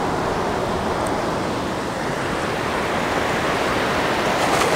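Surf washing up a sandy beach in a steady rush of water noise, swelling a little near the end.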